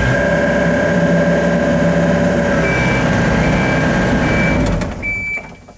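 Excavator's diesel engine running steadily for about four and a half seconds, then dying away, with a high beep sounding on and off from about halfway through. The machine keeps stalling during operation because of a mechanical fault.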